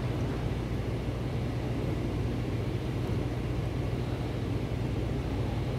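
A steady low hum of background machinery, with a thin stream of hot water from a gooseneck kettle trickling into the coffee bed of a V60 pour-over dripper.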